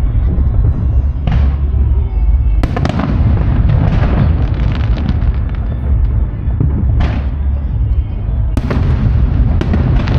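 Aerial firework shells bursting: about five sharp bangs, with a continuous low rumble of booms in between.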